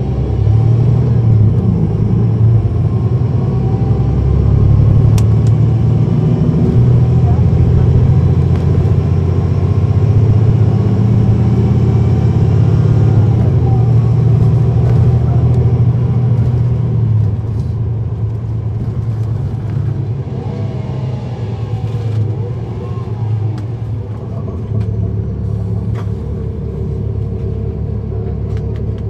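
Cummins ISL9 diesel engine of a 2010 NABI 40-SFW transit bus running under way, heard from on board as a steady low drone. It is louder through the first half and eases off a little a bit over halfway through.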